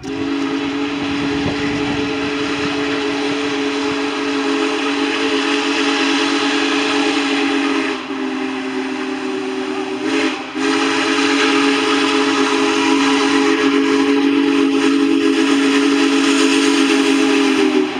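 Steam locomotive's chime whistle sounding long blasts as it approaches a grade crossing, a chord of several steady notes over a hiss of steam, broken briefly about ten seconds in.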